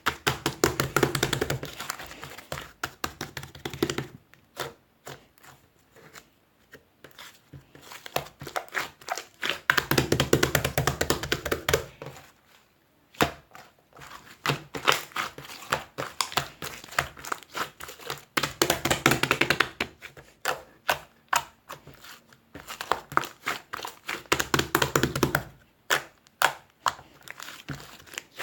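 Dense rapid clicking, tapping and crinkling, as of objects handled close to the microphone, coming in bursts of a few seconds with short quiet gaps between them.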